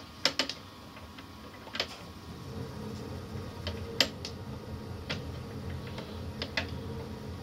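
Scattered small clicks and taps of hands handling a rubber timing belt and plastic pulleys on a plywood printer frame, the sharpest about four seconds in. A low steady hum comes in about two and a half seconds in.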